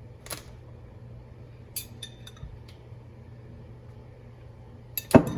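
Spoon clinking and scraping against the sauce jar and dishes while pasta sauce is spooned onto slider rolls: a few faint taps, then a quick run of loud clinks near the end, over a steady low hum.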